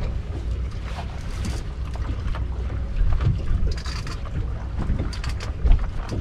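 Wind buffeting the microphone on a small boat in storm weather, a steady low rumble with a few sharp clicks and knocks in the last second or so.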